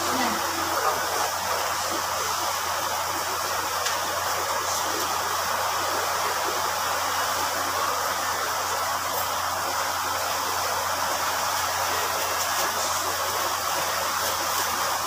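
Steady rushing background noise with a low hum, unchanging throughout, with a few faint ticks near the end.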